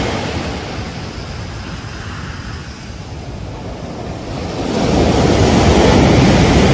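Ocean waves on a beach: the wash of one wave fades over the first few seconds, then the next wave surges in and breaks, loudest about five to six seconds in.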